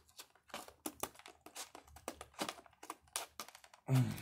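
Scissors snipping and crackling through stiff plastic blister packaging, a quick irregular run of sharp clicks and snaps. A brief vocal sound comes near the end.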